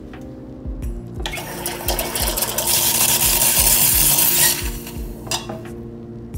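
Gaggia Classic Pro steam wand being purged into an empty stainless steel pitcher, clearing out leftover condensation. A loud hiss of steam starts about a second in, grows louder, then cuts off about four seconds later.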